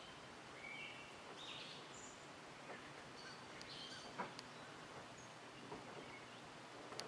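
Faint outdoor morning ambience with scattered short, high bird chirps, and a sharp click about four seconds in.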